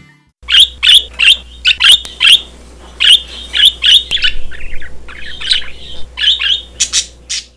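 A parrot squawking: a string of short, sharp calls in quick runs of two to four.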